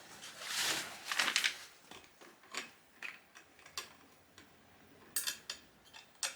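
Seat clamp on a children's balance bike being worked with a small hand tool: a short scraping rush in the first second and a half, then irregular light clicks and taps of metal as the clamp is tightened on the seat post.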